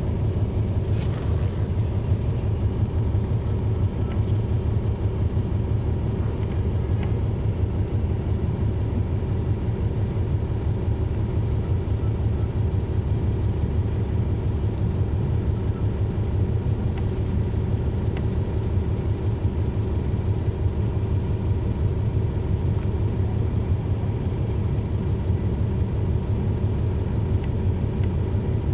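Caterpillar C13 inline-six diesel of a NABI 40-foot transit bus running steadily, heard from the rear seats inside the bus, with its engine cooling fans on. The rumble stays level throughout, with a couple of light clicks about a second in and again a little past halfway.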